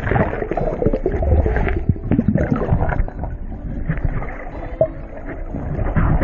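Water sloshing and splashing around a small boat, with irregular knocks and splashes.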